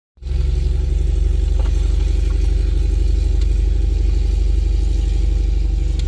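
An engine running steadily at a constant speed, a loud low hum with a fine, even pulse. It starts abruptly just after a brief silence.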